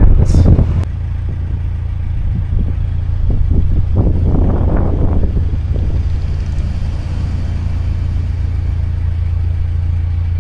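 Narrowboat's diesel engine running steadily, a deep even hum, with a louder stretch at the very start and a brief rise of rougher noise about four seconds in.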